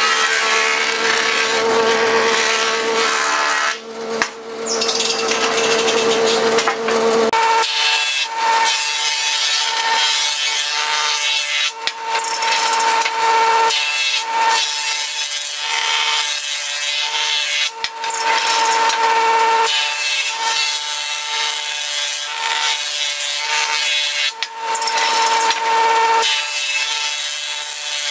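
Benchtop jointer running, its cutterhead shaving the edges of pine boards fed across it pass after pass: a steady motor whine with the rasp of cutting wood, and short dips between boards. About seven seconds in, the whine jumps sharply higher and the lowest sound drops away.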